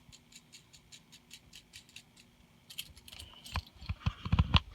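Small metal plumbing parts clinking and rattling as they are handled: a run of light ticks, then louder knocks in the last second.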